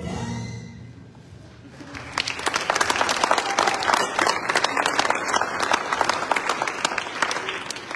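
A choir's last sung note fades, then an audience breaks into applause about two seconds in, with individual claps standing out, easing off near the end.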